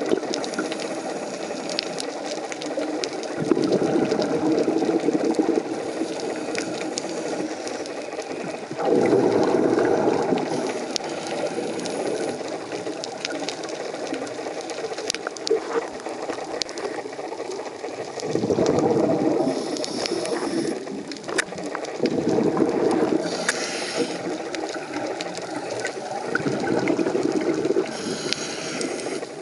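Scuba regulator breathing underwater: a rumble of bubbles swells up every few seconds on each exhalation, with a few short hissing inhalations, over a constant crackle of fine clicks.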